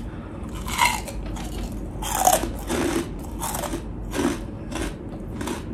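Close-miked crunching as a mouthful of chicharon (deep-fried pork rind) is bitten and chewed, crunch after crunch at a little over one a second.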